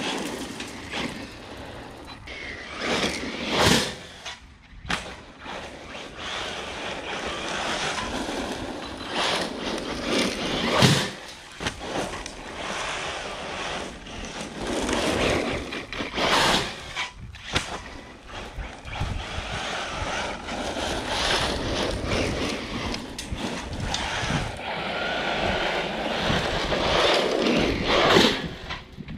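Electric RC buggy being driven hard over dirt and gravel: its motor whines in rising bursts as it accelerates, and its tyres scrape and skid across the loose ground in repeated surges.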